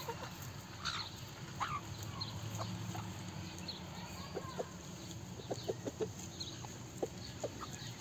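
A small flock of hens and a rooster clucking softly while they forage, with short clucks scattered through and a few quick ones bunched together past the middle.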